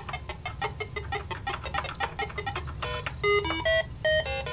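TRS-80 Model 1 game music, square-wave beeps from the cassette port played through a small Radio Shack amplifier. It starts as a fast run of short notes, then from about three seconds in becomes a slower, louder tune of buzzy held notes, over a steady low hum.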